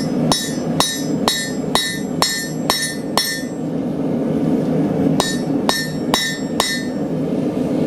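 Hand hammer striking a hot cut on hot steel bar stock on the anvil to cut through it. There are eight ringing blows about two a second, a pause of nearly two seconds, then four more.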